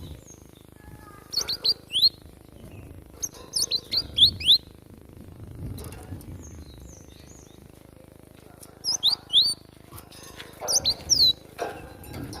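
Glatik batu (cinereous tit) calling in four quick bursts of three or four sharp, high, down-slurred notes, with short pauses between the bursts.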